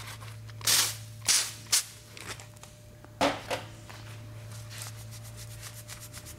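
A few short, loud hissing spritzes in the first three and a half seconds, then a fast, dense sizzling crackle as a TIG Brush electrolytic cleaning wand works on a metal exhaust tip, over a steady low hum.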